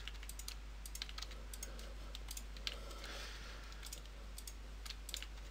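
Computer mouse buttons and keyboard keys clicking irregularly, many quick separate clicks.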